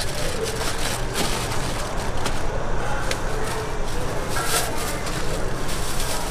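Aluminium foil crinkling as food is folded into it by gloved hands, then a plastic bag rustling near the end, with many short crackles throughout.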